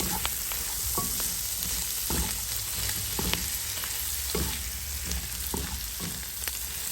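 Chicken, egg, carrot and gai lan sizzling as they are stir-fried in a hot oiled pan, with stirring scrapes and knocks against the pan about once a second.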